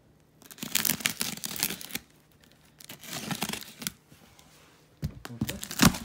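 Knife slicing through packing tape on a cardboard box and the tape and flaps tearing open, in three bursts, the last the loudest.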